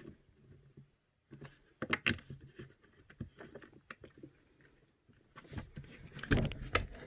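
Small, irregular clicks and light taps of screws and tools being handled on an airsoft sniper rifle's hop-up chamber, with a denser run of louder handling knocks near the end.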